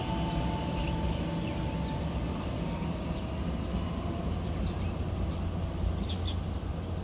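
Taiwan Railway EMU700-series electric multiple unit pulling away and receding: a low rumble of the wheels running on the rails, with a steady electric whine that stops about two seconds in. Birds chirp briefly now and then.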